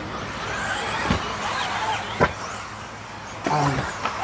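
Electric 1:10 RC off-road buggies running on the track, their motors whining up and down in pitch as they throttle on and off, with two sharp knocks about one and two seconds in.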